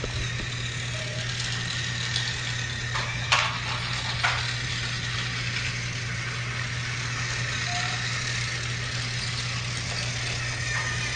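Small electric motors of battery-powered toy Thomas engines running along plastic toy track with a steady hum and rattle. There are a couple of sharp plastic clacks about three and four seconds in.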